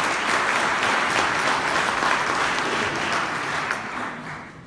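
Audience applauding in a large hall, the clapping steady and then dying away near the end.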